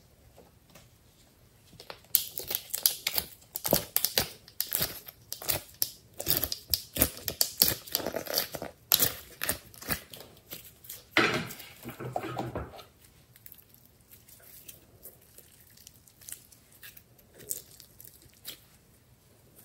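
Glossy slime being squeezed and stretched by hand: a quick run of sticky clicks and pops starting about two seconds in, a longer, louder squish near the middle, then only a few faint clicks.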